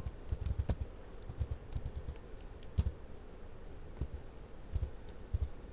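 Computer keyboard typing: irregular key clicks as a word is typed, with a couple of heavier key strikes about three and four seconds in.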